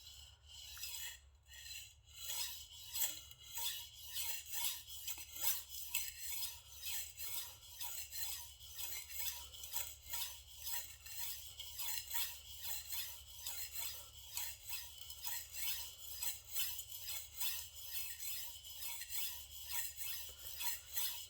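Steel knife blade (a Shigeki Tanaka gyuto) stroked back and forth on a diamond sharpening stone under light pressure, a steady rhythmic scraping of about two strokes a second, working the edge to raise a burr on the second side.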